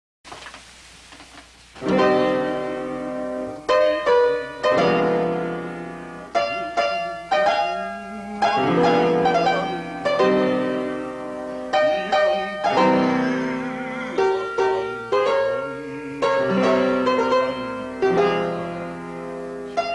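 Solo piano music, chords struck and left to ring out, beginning about two seconds in after a faint hiss.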